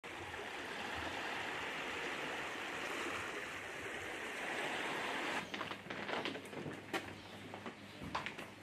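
Gentle sea water washing and lapping in the shallows, a steady hiss, which cuts off suddenly about five seconds in; a few scattered sharp clicks and rustles follow.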